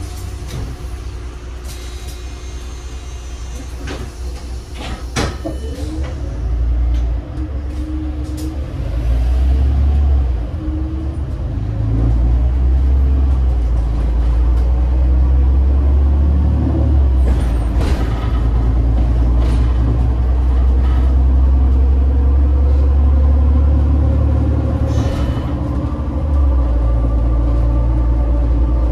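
Heuliez GX 137 city bus's Iveco Tector 7 six-cylinder diesel engine running under way with a deep steady drone. It grows louder about twelve seconds in and dips briefly near the end, with a few sharp clicks and rattles along the way.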